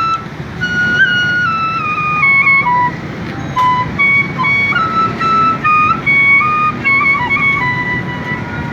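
Bansri (bamboo transverse flute) playing a naat melody live: held notes stepping slowly down and then back up, with small ornamental turns, over a steady low background rumble.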